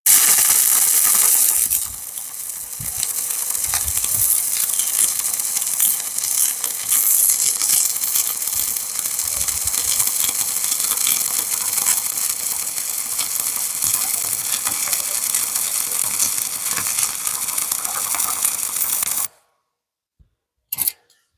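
Stick welding arc from an E6013 electrode laying a bead that joins rebar to a steel plate: a steady hissing crackle, loudest in the first two seconds, that cuts off suddenly about nineteen seconds in. Two brief clicks follow near the end.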